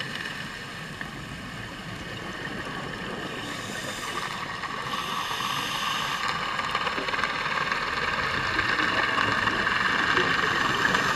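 A boat's engine and propeller heard underwater: a steady whine of several tones over a rough wash, growing steadily louder.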